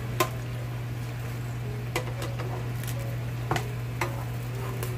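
Metal tongs clicking against a nonstick air fryer basket and the chicken leg quarters in it as the pieces are turned, a few sharp clicks with the loudest just after the start. Faint sizzling of the hot chicken and a steady low hum run underneath.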